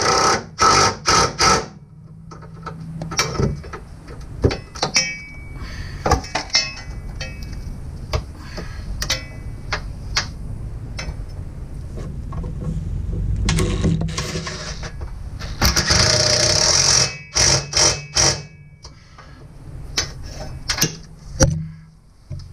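Power tool driving the top nut of a rear shock absorber through a socket on a long extension, run in short bursts: several near the start and a longer run past the middle, with clicks and clinks of metal between.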